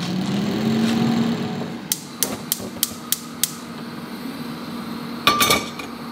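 Gas hob's igniter clicking about six times, roughly three a second, followed near the end by a short, louder metallic clatter with a brief ring. Before the clicks, a low hum rises in pitch and then holds steady.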